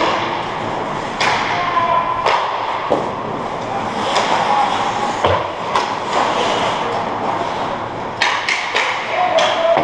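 Ice hockey play around the goal: skates scraping across the ice and a series of sharp clacks of sticks and puck, with a quick run of several hits about eight seconds in.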